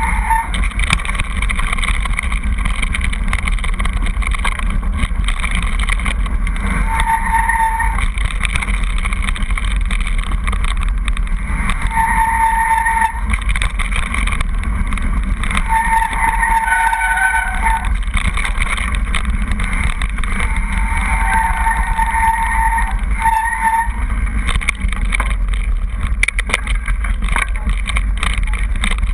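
Mountain bike running fast down a loose gravel track, heard from a camera mounted on the bike: steady tyre rumble and crunch on the gravel with wind buffeting the microphone. A few brief high-pitched tones come and go through the ride.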